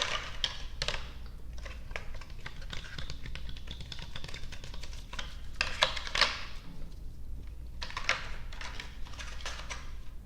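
Close-miked chewing of soft, sticky gummy candy: a dense run of wet mouth clicks and smacks, with a short lull about seven seconds in.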